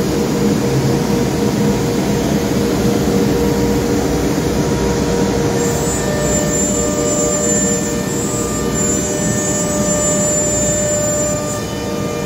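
BH Engineering BHZ12 CNC machining center running: the router spindle cuts MDF while the table's vacuum pump and the dust collector run, making a steady mechanical noise with a low hum. A higher whine joins about halfway in and stops near the end.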